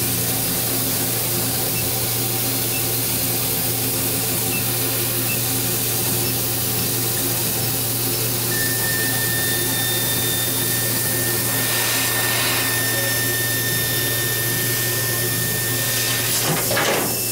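Laser cutter running with a steady hum of its fans and pump. About eight seconds in, a thin high-pitched squeal starts and holds steady, stopping shortly before the end. This is the laser squeal that appears while cutting plywood, which the owner blames on tap water mixed into the chiller coolant. Near the end a brief whoosh sweeps up and down.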